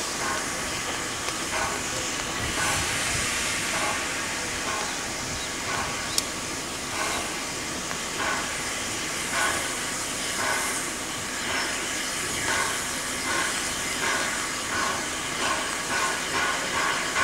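Steam hissing from the three-cylinder A1 Pacific locomotive Tornado, with a regular run of exhaust beats that come gradually closer together, as the engine gets under way. One sharp click about six seconds in.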